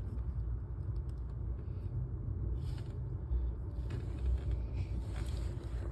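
Steady low rumble of an idling truck engine heard inside the cab, with a few faint clicks from hands working at the fuse panel.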